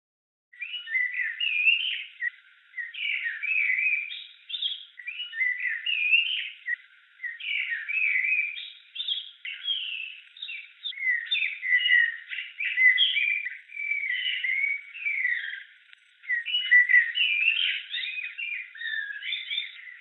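Small songbirds chirping and twittering in quick phrases, starting about half a second in. The sound is thin and cut to a narrow high band, like a filtered recording.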